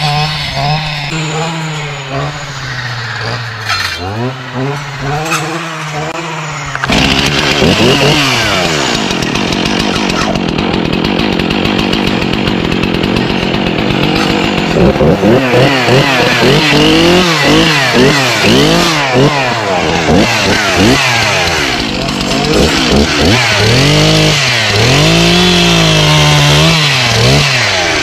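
Handheld two-stroke saw engine running and revving up and down again and again as it cuts brush and small trees. It is quieter at first and jumps louder about seven seconds in.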